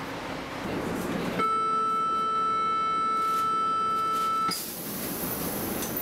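Metro train's door-closing warning: a steady electronic tone held for about three seconds, starting about a second and a half in, over the hum of the train at the platform. It cuts off and gives way to the carriage's running noise with a faint high whine as the train sets off.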